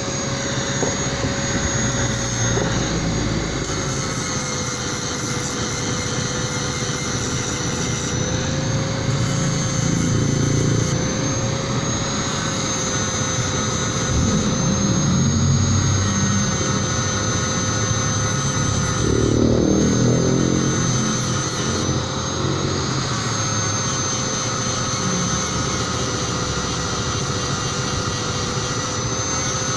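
Electric angle grinder running at speed with an abrasive disc, grinding the welded joint of a stainless steel pipe elbow. A steady high whine runs under a rough grinding noise that swells as the disc is pressed onto the metal, loudest about two-thirds of the way through.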